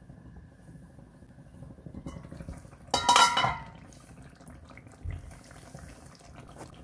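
A metal pot lid clanks and rings against the cooking pan about three seconds in, over faint low background noise. A softer, duller knock follows about two seconds later.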